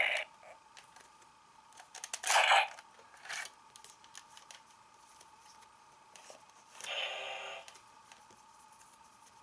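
Clicks and rattles of plastic toy parts and cards being handled on a Kamen Rider Ryuki Drag Visor gauntlet and V-Buckle belt, with a loud short burst about two seconds in and a smaller one a second later. Near the seven-second mark comes a short buzzy electronic tone, over a faint steady hum.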